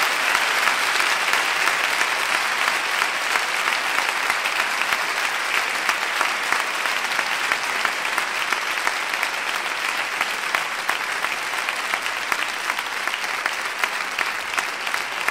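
Audience applauding: dense, sustained clapping that eases off slightly toward the end.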